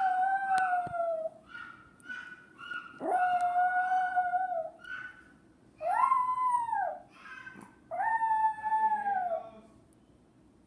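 Small Chihuahua-type dog howling: four long, rising-and-falling howls with shorter, higher whines between them, stopping near the end. The howling is set off by a person making a crying-like noise.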